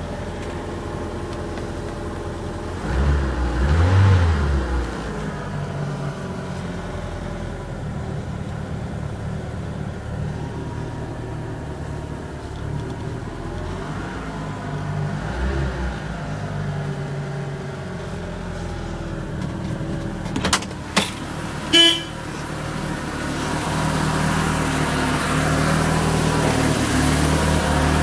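1974 BMW 2002's four-cylinder engine running steadily just after a cold start following three months of sitting, swelling briefly a few seconds in and again midway, and growing a little louder near the end. A few short sharp clicks and a brief tooting blip come about three-quarters of the way through.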